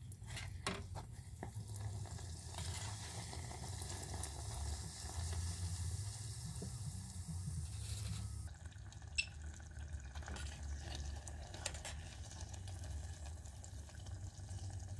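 Yeast donuts deep-frying in a pot of hot oil, the oil sizzling and bubbling steadily. A few sharp clicks near the start come from the metal slotted spoon turning the donuts.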